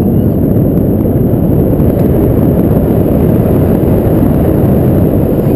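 Wind noise: steady, loud rumbling of airflow over an action camera's microphone during a tandem paraglider flight.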